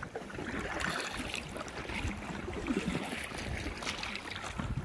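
Water splashing and sloshing from a double-bladed paddle working the sea beside an inflatable boat, over a steady wash of wind and choppy water.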